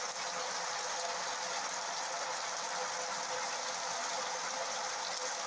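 Steady, even hiss of continuous background noise with a faint steady hum in it.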